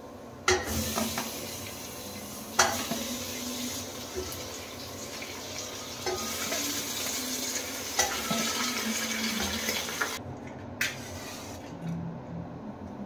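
Raw chicken pieces sizzling as they go into hot onion-tomato masala in an aluminium pressure cooker pot, with four sharp clanks of the steel plate and spoon against the pot. The sizzling cuts off abruptly about ten seconds in.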